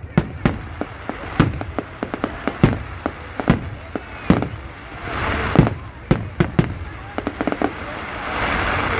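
Fireworks display: aerial shells bursting in an irregular string of sharp bangs, more than a dozen, over a steady hissing background that swells a little past the middle and again near the end.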